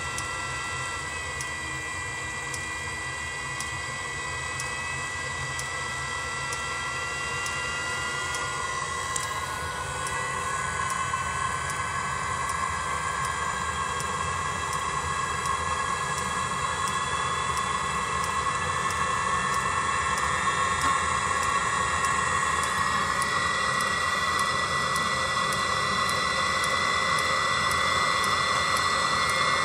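Webasto Thermo Top C coolant heater running through its cold start: the combustion-air blower whines and rises in pitch over the first several seconds, then the burner's rushing noise builds and gets louder, over a steady light ticking typical of the fuel dosing pump.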